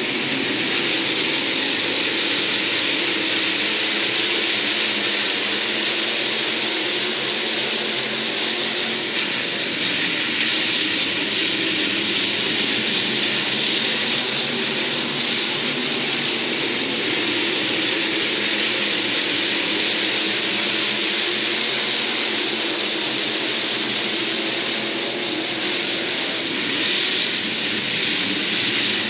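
IMCA SportMod race cars running on a dirt oval, the V8 engines of the field blending into one loud, steady roar.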